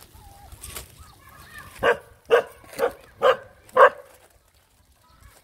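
A dog barking five times in quick succession, about two barks a second, after a few faint high whines.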